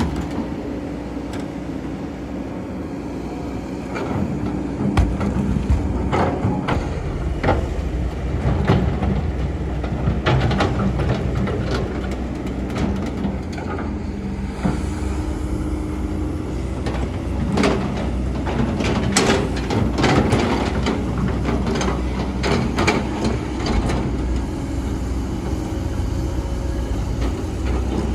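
Excavator engine running steadily under load, with frequent knocks and scrapes from the bucket digging sand starting about four seconds in.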